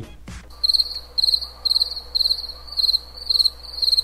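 Crickets chirping, a little over two high trilled chirps a second, starting about half a second in: the stock cricket sound effect used as an 'awkward silence' gag.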